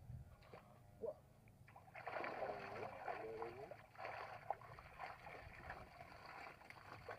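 Fish thrashing and splashing in the water inside a cylindrical wire-mesh fish trap as it is lifted, a busy continuous splashing that starts about two seconds in.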